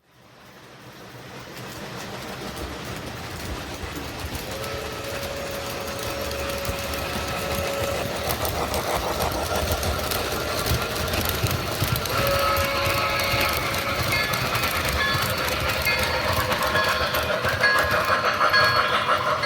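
Lionel O gauge model train running on the layout track, with steady wheel clatter and motor rumble that rises from silence over the first couple of seconds and grows louder. Two held tones come and go over it, one about a third of the way in and one past the middle.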